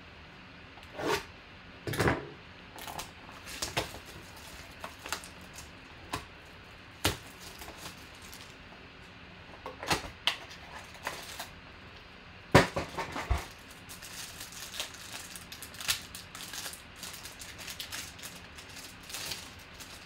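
A cardboard trading-card box and its sealed card pack being opened by hand: scattered crinkles, rustles and clicks of the packaging, with one louder crack about two-thirds of the way through.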